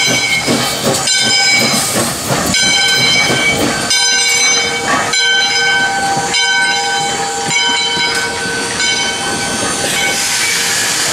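Steam locomotive No. 40 passing slowly at close range, its bell ringing with a strike about once a second over the hiss of escaping steam.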